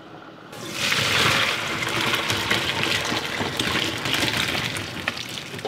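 Hot water and blanched potato fries poured from a pot into a metal colander, the water gushing and splashing through. It starts about half a second in, is loudest just after, and slowly trails off near the end.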